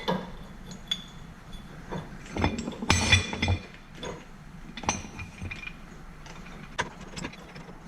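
Scattered metallic clinks and knocks of steel tools against metal as a ball joint press is worked on a lower ball joint, with a busier run of clanks about a third of the way in.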